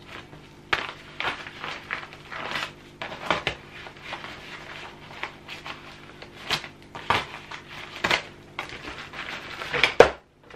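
Crinkly plastic packet rustling and crackling in irregular bursts as it is cut with a kitchen knife and pulled open by hand, with one louder sharp crackle near the end.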